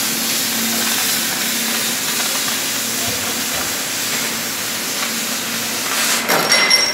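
Oxy-acetylene cutting torch hissing steadily as it cuts through a steel bar, with a few short sharp knocks near the end.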